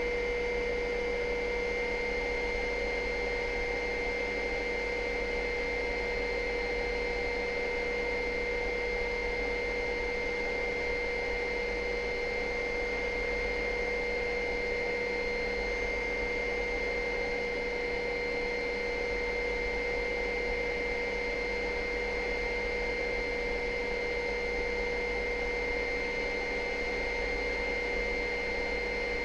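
Helicopter in flight, a steady hiss and hum with a few held whining tones that do not change.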